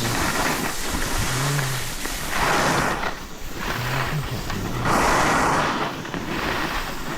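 Skis scraping and carving on packed snow in a series of turns, a swell of hiss with each turn every two to three seconds.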